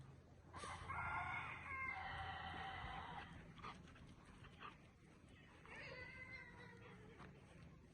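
German shepherd dog whining twice, a long high whine of about two and a half seconds and then a shorter one past the middle.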